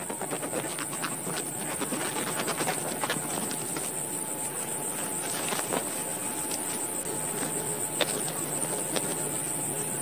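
A small hand sickle snipping through young wheat stalks, with the rustle of cut blades being handled and many small sharp clicks, over a steady high hiss.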